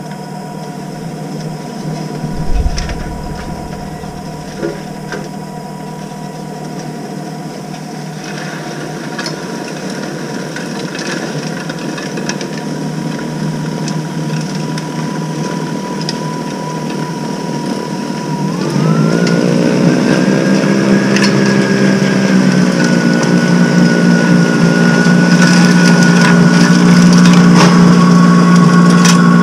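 Greenworks Pro 80V two-stage electric snow blower running with a steady electric whine that grows louder as it comes closer while throwing snow. About eighteen seconds in the whine jumps higher in pitch and louder as the motor speeds up. A single low thump about two and a half seconds in.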